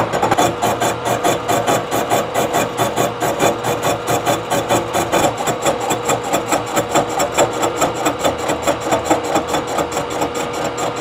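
A 3-inch carbide-insert face mill cutting the flange face of a cast-iron Ford V10 exhaust manifold on a milling machine. A steady whine runs under an even, rapid chatter of about four to five beats a second as the inserts strike the interrupted cut.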